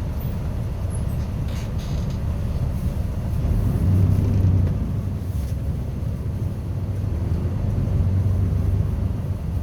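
Low, steady rumble of a bus underway, swelling twice.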